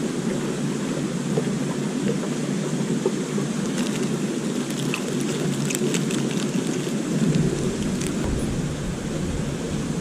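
Steady rush of flowing river water, with a few light clicks near the middle.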